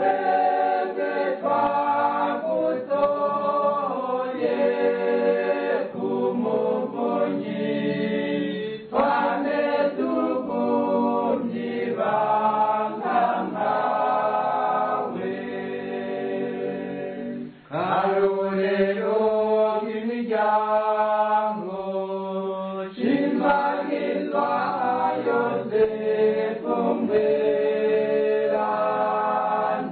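Choir singing a Kirundi Catholic hymn to Saint Joseph in phrases, with a short break between phrases about eighteen seconds in.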